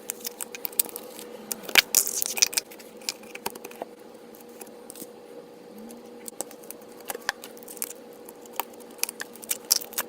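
Slime being squished and pressed by hand, giving many small, irregular clicking and popping sounds, busiest about two seconds in, over a steady faint hum.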